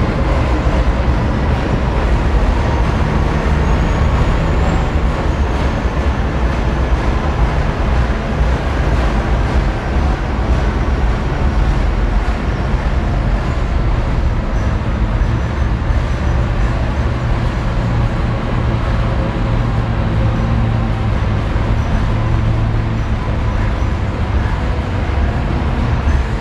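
Montreal STM rubber-tyred metro train running through a tunnel, heard from inside the car as it approaches a station. It makes a steady, continuous rumble with a faint high whine above it.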